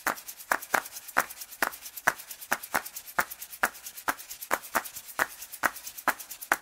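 A steady, even rhythm of short, crisp percussive ticks, about four to five a second, alternating stronger and weaker.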